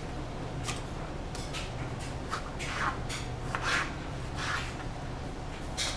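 Knife cutting a tomato on a plastic cutting board: a series of short scraping strokes at irregular intervals, roughly one or two a second, over a steady low hum.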